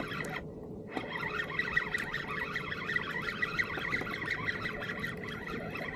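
A dense chorus of many birds calling at once, lots of short overlapping chirps over a steady hiss.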